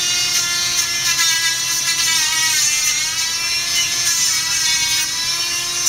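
Electric pet nail grinder running with a steady high whine while grinding a Labrador's nails; its pitch sags slightly about two seconds in and then recovers.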